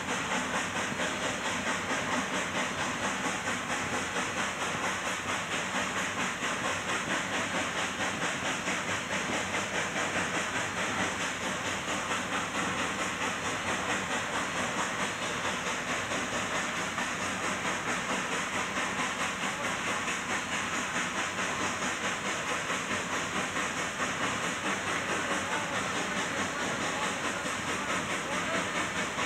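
Steam hissing continuously inside the cab of a K-36 narrow-gauge 2-8-2 steam locomotive, with a fast, even pulse of exhaust beats running through it.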